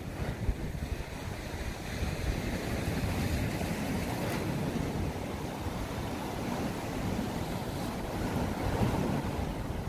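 Wind buffeting the microphone over Baltic Sea waves washing against the rocks below a pier. The surf swells from about two seconds in and again near the end.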